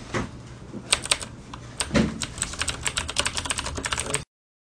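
Computer keyboard typing: a quick run of clicky keystrokes, getting denser about two seconds in, that cuts off suddenly just past four seconds.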